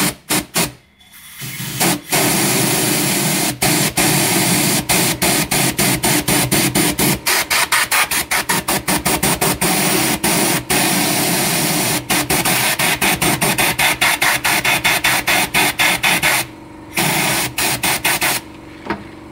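Compressed-air blow gun hissing into the engine's oil filler opening in quick pulses as the trigger is squeezed and released a few times a second, blowing air through the engine to push the old oil out of the open drain and filter ports faster. The blasting stops briefly near the end, then fires again.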